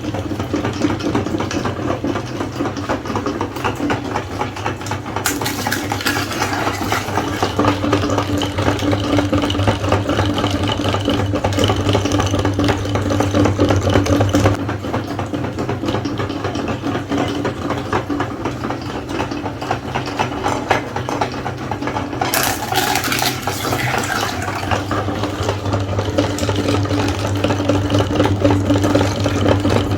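Electric meat grinder running, its motor humming steadily with a rattly, grinding noise that gets brighter and harsher at times as it works through the eggs.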